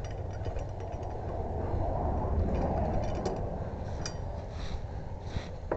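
Clicking and ratcheting of a metal lug wrench with a locking-nut key on a wheel's lug nuts, over a steady low rumble that swells about halfway through.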